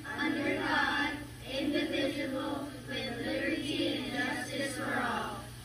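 A class of children reciting the Pledge of Allegiance together in unison, played back through a screen's speaker. Their voices stop near the end as the pledge finishes.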